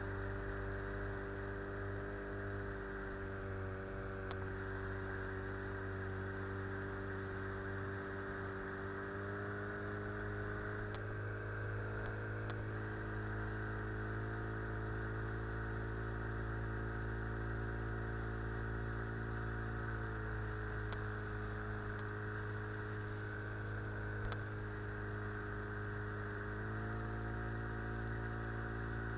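Outboard motor running steadily, driving an inflatable boat; its pitch rises slightly about two seconds in, drops around twenty seconds and picks up again near the end.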